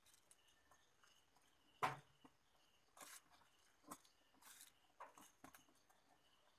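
Faint handling noise from fingers pressing and rubbing on the flat ribbon cables and gold-tab flex strips along the edge of an LED TV panel: a handful of soft clicks and scrapes, the loudest about two seconds in, over near silence.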